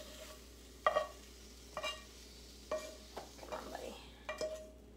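A utensil knocking and scraping against a hot frying pan about once a second as cooked squash is scooped out, each knock ringing briefly. Faint sizzling of hot oil underneath.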